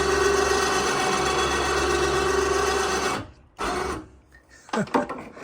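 Electric winch motor running steadily with a whine while driving the toy hauler's rear door, powered only by a small jump-box battery. It stops about three seconds in, runs again for a moment, and a few short knocks follow near the end.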